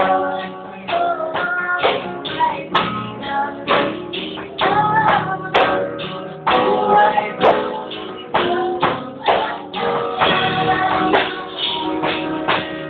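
A man singing with his own strummed electric guitar, the chords striking in a steady rhythm under the voice. It is heard through a phone's microphone, thin and cut off at the top, a recording the uploader himself calls not good-sounding.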